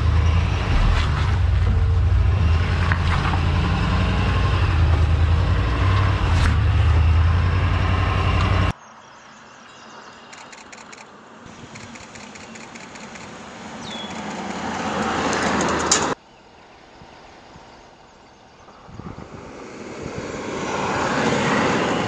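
Ford Super Duty pickup trucks driving off-road, in three shots. For about the first nine seconds an engine gives a loud, steady low rumble close up. After abrupt cuts, twice, an engine and tyres grow louder as a truck comes along a dirt trail.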